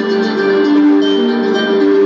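Background music: a plucked string instrument, guitar-like, playing a melody of held notes.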